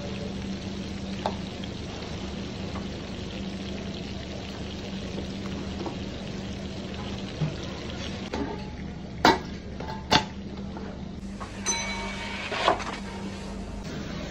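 Steady kitchen background hiss with a low hum, broken in the second half by a few sharp clicks and knocks.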